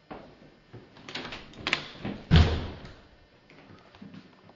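An interior door being handled: a few sharp clicks, then one hard thump a little over two seconds in.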